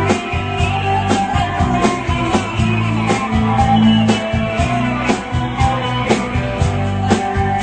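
Rock band playing live: guitar over bass and a steady drum beat.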